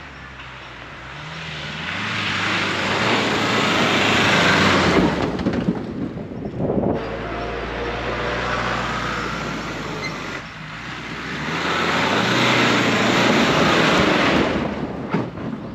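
Pickup truck driving along a sandy dirt track, with engine and tyre noise. The sound swells twice and is loudest as the truck passes close by near the end.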